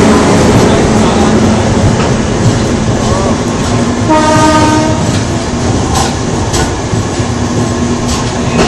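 Rumble and clatter of two Indian Railways passenger trains passing close side by side, wheels knocking over rail joints, with a short train horn blast about four seconds in.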